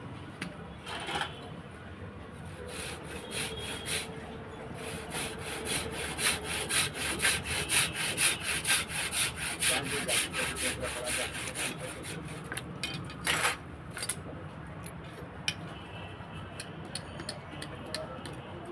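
A hand tool rasping on metal in quick back-and-forth strokes, about three a second, loudest in the middle stretch, with one harder stroke near the end.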